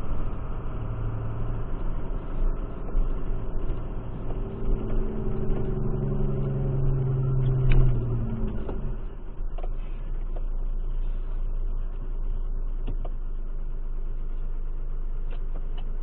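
Vehicle engine and road rumble picked up by a dashcam inside the moving vehicle. A steady engine note stands out for a few seconds in the middle and fades about nine seconds in, leaving an even low rumble with a few faint clicks.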